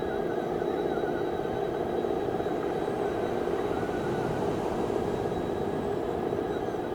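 Radio-controlled construction vehicles running under load: a steady electric motor and gearbox drone, with a faint whine that wavers in pitch.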